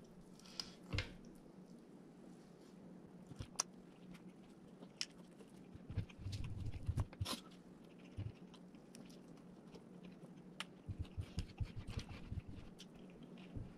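A person chewing food close to the microphone, with scattered soft crunches and small clicks, a cluster of them near the middle.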